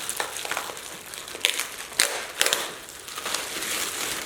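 Meal-kit packaging crinkling and rustling as it is handled and opened, with a few sharper crackles about halfway through.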